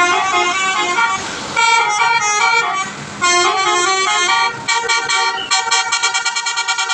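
Twelve-trumpet basuri musical air horn (telolet horn) on a medium bus, playing a melody in stepped notes. In the last couple of seconds the notes break into rapid stuttering pulses.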